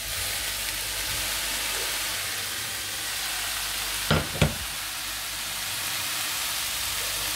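Sautéed vegetables sizzling steadily in a stainless steel frying pan as leftover pearl couscous is tipped in on top of them, with two sharp knocks of cookware about four seconds in.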